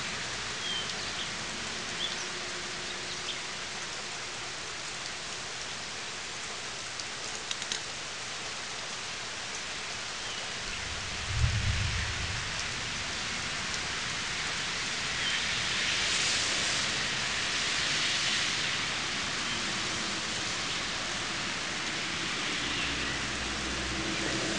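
Steady rain falling on wet bark mulch and plants, a constant hiss with scattered drop ticks. A short low thump comes about halfway through, and the rain hiss swells for a couple of seconds a little later.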